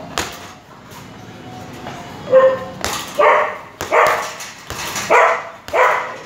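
Gloved strikes thudding on a hanging heavy punching bag, with a run of short dog barks, five or six of them a little under a second apart, starting about two seconds in and louder than the strikes.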